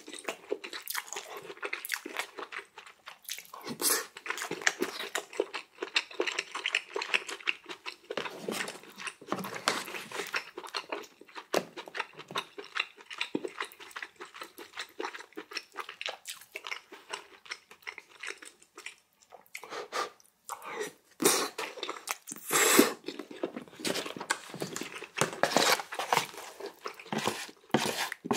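Close-miked mukbang eating sounds: a person chewing mouthfuls of food, with many short wet clicks and smacks. A louder burst comes about three-quarters of the way through.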